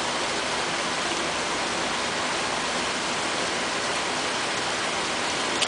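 A steady, even hiss that doesn't change, with one faint click near the end.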